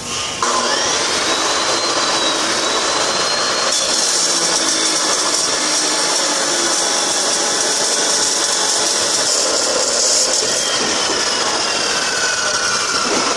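Power cutting tool starting about half a second in with a rising whine as it spins up, then running steadily while it cuts through a 1½-inch steel pipe.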